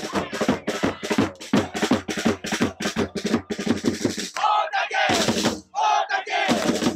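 Football supporters' drum beating fast, about five strokes a second, under a chanting crowd; about four seconds in the drumming stops and the crowd goes on shouting a drawn-out chant.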